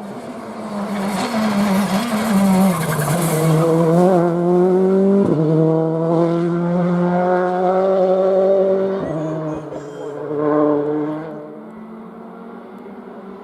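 Rally car engine at full throttle, its pitch climbing hard in each gear with two quick upshifts, about five seconds in and about nine seconds in, then fading away.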